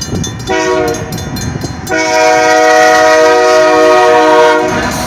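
Freight locomotive's air horn sounding a chord in two blasts: a shorter one about half a second in, then a longer, louder one held almost to the end, typical of the close of a grade-crossing signal. Low rumble of the train rolling underneath.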